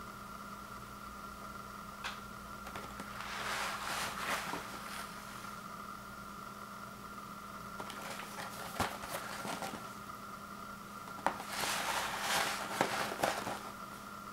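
Cardboard box of instant oatmeal packets handled and turned over in the hands: scuffing and rustling in several short spells, with a few sharp taps. A steady hum runs underneath.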